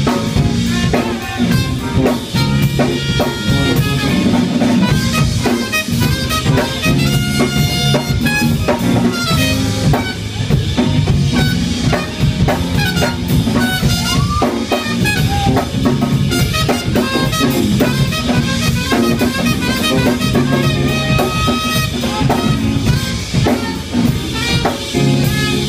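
Trumpet playing a jazz solo over a drum kit and band accompaniment.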